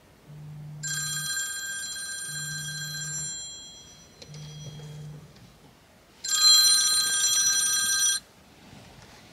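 Phone alarm going off: a low buzzing in three one-second pulses and a high electronic ringing tone in two bursts, the second louder, cut off suddenly about eight seconds in.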